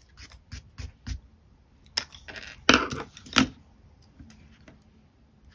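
Wooden coloured pencils clicking and knocking against each other and on a wooden tabletop as they are sorted and picked up: a few light clicks, then a louder cluster of knocks about two to three and a half seconds in.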